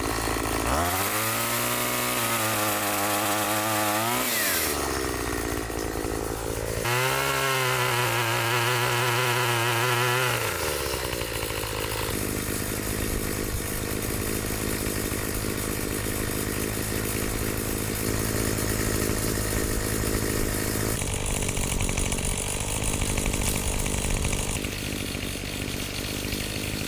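Chainsaw revving up twice, its pitch rising, holding for about three seconds and falling back each time, as it cuts branches. It then runs on steadily for the rest of the time.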